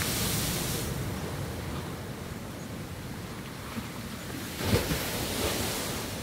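Choppy sea surf washing on a rocky shore, with wind on the microphone; one louder wave breaks near the end.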